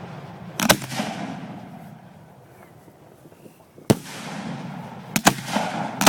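Fireworks going off: sharp bangs, two close together under a second in, one near four seconds, another close pair around five seconds and one more near the end, each trailing off in a rolling echo and crackle.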